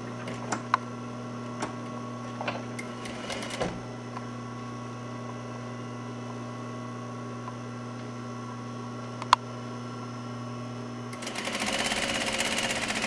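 Industrial sewing machine stitching a hem: a steady hum with a few light clicks while the fabric is placed, then about eleven seconds in a fast, even run of needle strokes that is the loudest sound.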